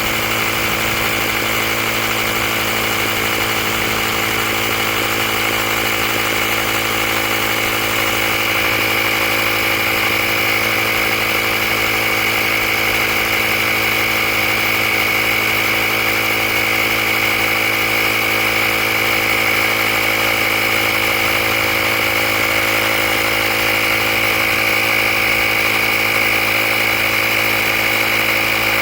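Handheld air compressor from a tire repair kit running steadily with a high whine, inflating a tire toward its preset 35 PSI.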